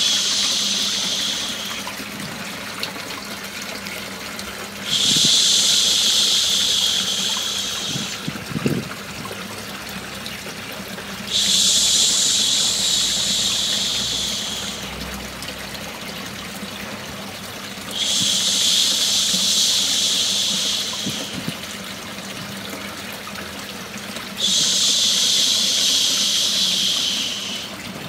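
A long 'shhh' shushing sound repeats about every six and a half seconds, each lasting about three seconds, to soothe a baby to sleep. The steady rush of running water used as white noise continues underneath.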